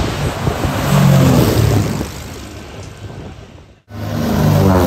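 Twin-propeller Britten-Norman BN-2 Islander passing low overhead on landing approach, its engines and propellers droning with the pitch falling as it goes over. After a sudden cut near four seconds, a second Islander rises in and passes over the same way.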